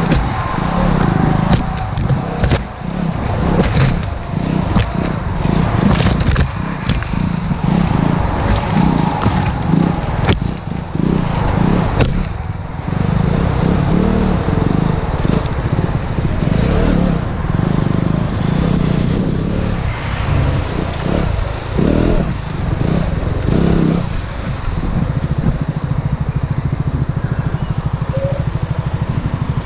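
Motorcycle engine running under changing throttle as it rides a rough dirt trail, with sharp knocks and clatters in the first twelve seconds or so. Near the end the engine runs at a steady, even note.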